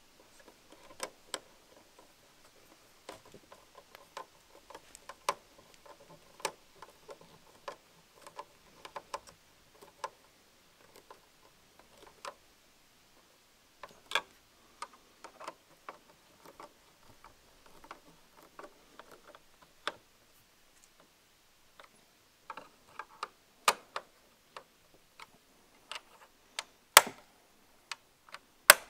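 Irregular small plastic clicks, taps and rattles as a tail-light housing is fitted back onto the car body and its screws are driven in with a hand screwdriver, with a few sharper snaps in the last several seconds.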